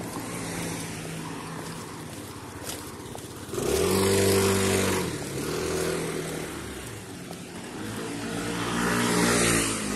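Motor vehicle engines running, each a steady hum with a low pitch. One gets loud suddenly about three and a half seconds in and eases off after five seconds, and another swells up near the end.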